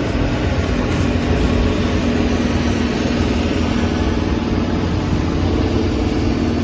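Heavy diesel truck engine running loud and steady through twin roof-mounted exhaust stacks, which are shooting flames.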